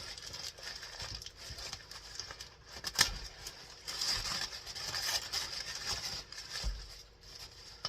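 Packaging being handled and unwrapped by hand: irregular rustling and scraping, with one sharp knock about three seconds in and a duller thud near the end.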